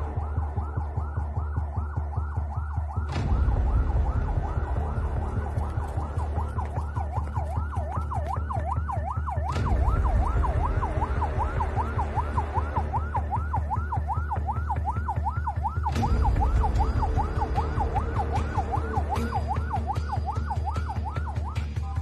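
Emergency siren on a fast yelp, its pitch rising and falling several times a second without a break, over a deep low rumble that steps louder about three, nine and a half and sixteen seconds in.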